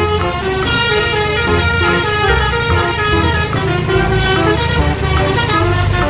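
Multi-tone 'telolet' bus horn playing a jingly tune, over a repeating low beat.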